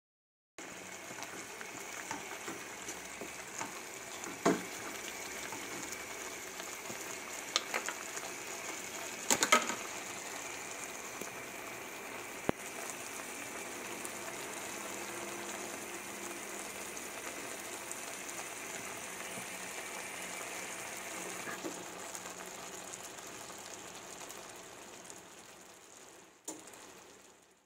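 Stir-fry of cucumber, prawns and tofu sizzling and bubbling in a non-stick wok, with a few sharp knocks of the spatula against the pan in the first half. The sizzle fades near the end.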